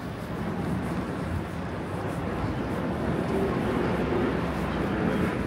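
Road traffic on a town street: a steady mix of passing engines and tyre noise that gradually grows louder.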